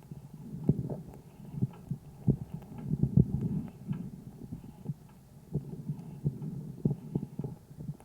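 Calf's chest sounds through a homemade stethoscope microphone on the right side, recorded on the fifth day of illness. Low breath sounds swell and fade about three times, with short sharp clicks scattered through them.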